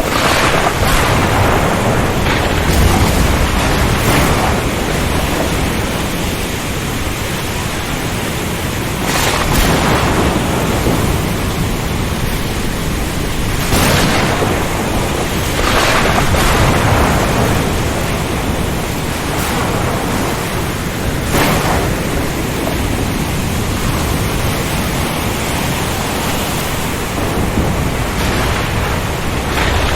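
Storm ambience: continuous heavy rain and wind noise, with a brief crash every few seconds.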